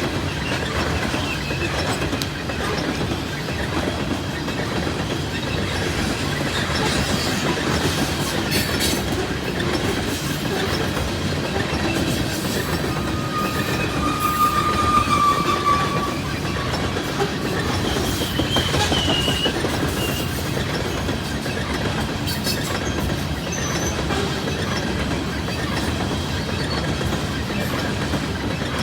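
A loaded coal train's cars rolling past, a steady clatter of steel wheels over the rails, with a brief high wheel squeal about halfway through.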